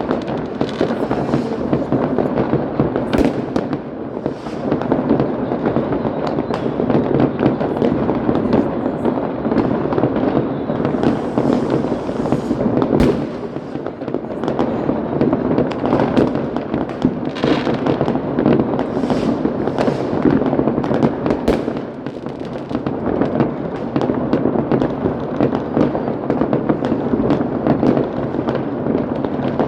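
Many fireworks and firecrackers going off at once: a dense, unbroken barrage of bangs and crackling, with a few sharper reports standing out about 3, 13 and 21 seconds in.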